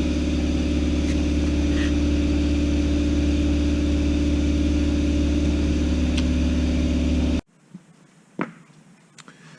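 A motor running with a steady low hum, cutting off abruptly about seven seconds in, followed by quiet with one faint tap.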